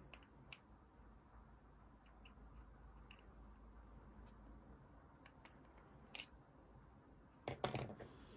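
Faint scattered clicks and ticks of small airsoft pistol parts and a small screwdriver being handled during assembly, with a louder cluster of clicks near the end.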